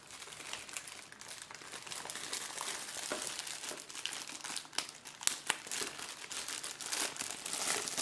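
Clear plastic wrapping crinkling and rustling as hands pull it open and off a tablet carrying case, with many small sharp crackles.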